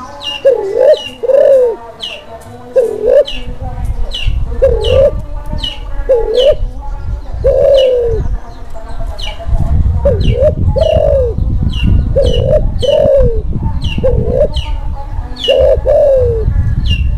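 Kelantan spotted dove in breeding condition giving its courtship coo: short bending coo notes repeated every second or so, the dove bowing as it calls. A small bird chirps over it with quick high falling notes, and a low rumble runs underneath, heavier from about ten seconds in.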